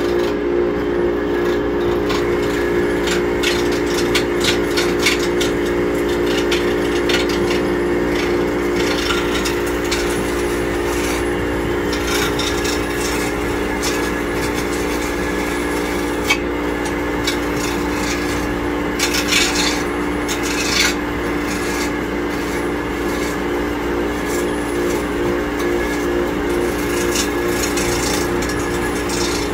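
Small wood lathe running with a steady, slightly pulsing motor hum while a turning tool scrapes against the spinning wooden bat blank, which runs with a wobble; the scraping comes and goes, with sharper cuts about two-thirds of the way through.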